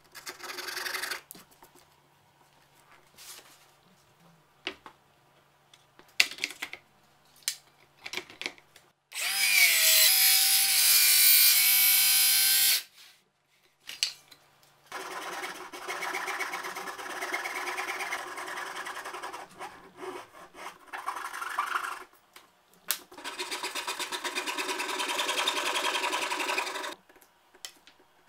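A fine-toothed hand saw cutting plywood in rhythmic back-and-forth strokes. Near the middle a circular saw spins up with a rising whine, cuts for about three and a half seconds, then stops abruptly, after which the hand sawing resumes in two longer runs.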